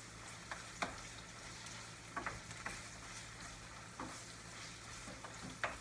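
Pork belly and green beans sizzling in a frying pan, stirred with a wooden spatula that knocks against the pan a few times at irregular intervals.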